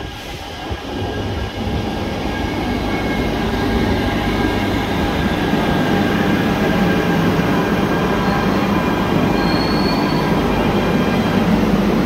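Barcelona Metro Line 1 train arriving at an underground station platform: the rumble of its wheels and cars grows louder over the first few seconds as it pulls in, then runs on steadily as it slows, with thin high steady tones over the rumble.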